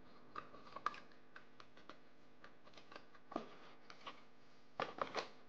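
Faint scattered taps and clicks of cardboard packaging being handled: a charger set back into its small box and the box lid closed, with a louder knock about three seconds in and a short cluster of knocks near the end.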